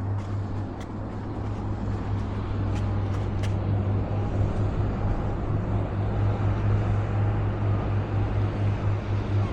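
Motor boat engine running with a steady low drone that throbs more clearly and grows a little louder after about four seconds.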